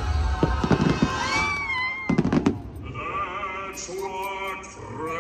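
Fireworks banging in a quick crackling cluster about two seconds in, over the show's soundtrack music and high gliding voices; from about three seconds in the music carries on with held notes.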